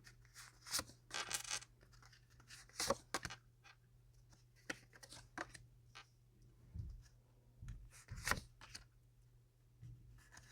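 Tarot cards being handled, drawn from the deck and laid out on a table: faint, scattered scrapes, slides and soft taps.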